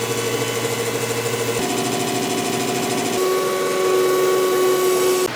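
Hydraulic gear pump running with a weird, abnormal noise: a steady machine tone that shifts pitch twice, getting louder after the second shift, then cuts off suddenly just before the end.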